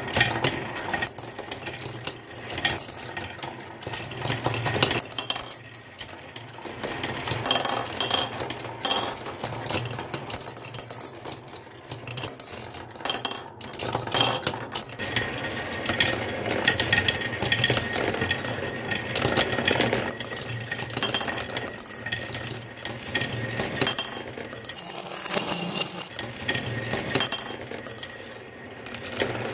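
Many marbles rolling and clattering down a wooden marble run: a dense stream of rapid clicks and knocks with occasional ringing clinks as they strike the track and each other, swelling and easing every few seconds.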